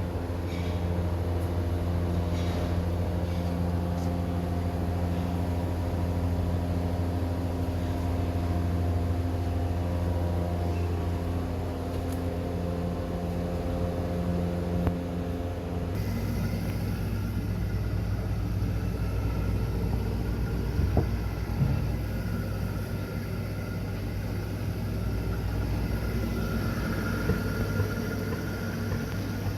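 Window air conditioner running with a steady low hum; the hum shifts abruptly a little past halfway.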